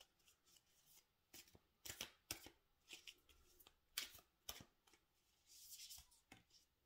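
Oracle cards being shuffled by hand to draw a card: faint, irregular soft taps and flicks, with a short rustle near the end.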